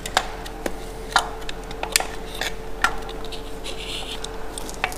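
Light metal clicks and clinks, about seven separate ones, as a new throwout bearing is worked onto the clutch fork inside a Subaru Impreza's transmission bell housing, with a brief scrape of metal rubbing a little after halfway.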